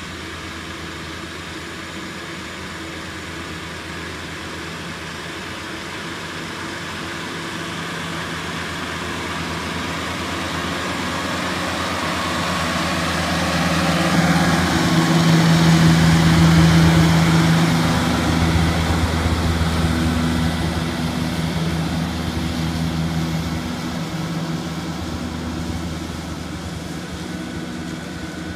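Kubota compact tractor's diesel engine running steadily as it drives past, growing louder to pass close about halfway through, then fading as it moves away. A higher steady whine joins in about halfway.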